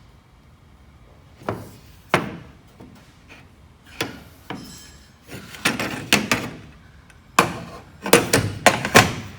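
Irregular knocks and bangs on a hollow metal door frame (knock-down jamb) as it is tapped into position. There are about a dozen strikes, the loudest in a quick cluster near the end.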